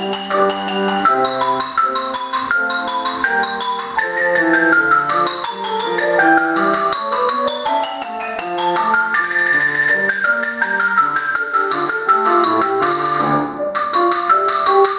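Solo xylophone played with two mallets: fast runs of short struck notes sweeping down and back up the keyboard, with a brief break near the end before the next phrase.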